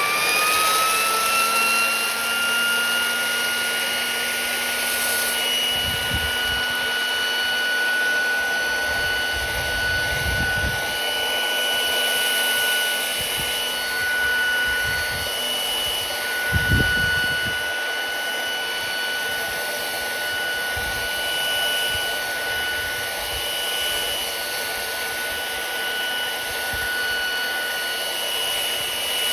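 Compressor-free handheld sandblaster running: its motor whines up to speed in the first couple of seconds, then holds a steady high whine over the hiss of blasting. A few brief low thuds come through, the loudest about two-thirds of the way through.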